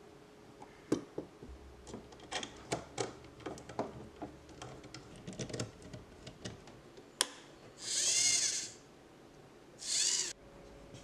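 Hard 3D-printed plastic parts and small hardware clicking and knocking as a servo and front steering assembly are fitted together. Near the end comes a small electric motor whirring twice, about a second and then half a second.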